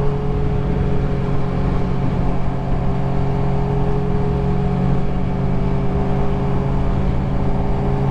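Motorcycle engine running at a steady cruising speed, heard from the rider's own bike, its pitch holding level throughout. Wind rumbles on the microphone underneath.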